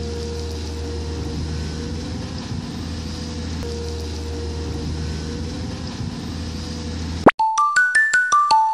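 Radio-controlled toy excavator's electric motors whirring steadily, with a higher whine that stops and starts. Near the end it gives way to a rising swoosh and a quick run of about eight bell-like mallet notes, the start of a logo jingle.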